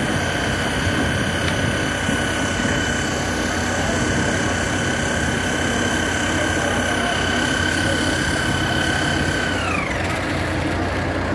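Loud, steady machinery noise with a high, even whine over it. Near the end the whine drops in pitch and fades out, like a motor winding down, while the rumble carries on.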